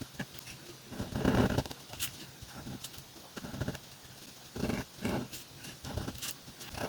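Calligraphy pen nib scratching across paper in several separate strokes, each under a second long. The longest strokes come about a second in and near the five-second mark, with a few sharp ticks between them.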